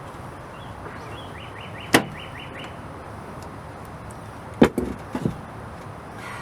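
Sharp knocks of hard objects striking: one about two seconds in, then a louder knock followed by a few smaller ones near the end.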